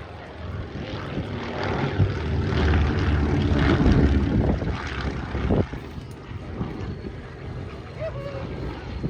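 Propeller aircraft engine passing by, growing louder to a peak about four seconds in and then fading away, with wind buffeting the microphone.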